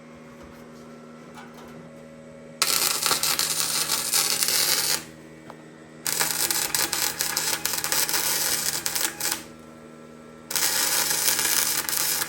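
Flux-core wire-feed welder laying three beads, a sputtering crackle that comes in runs of about two to three and a half seconds with short pauses between, over a steady electrical hum.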